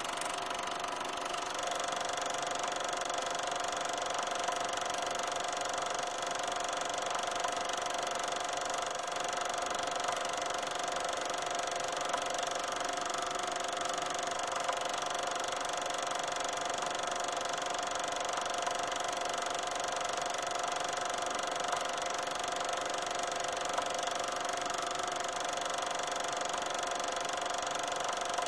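A steady mechanical hum of a running machine or motor, made of several unchanging tones, with a few faint ticks.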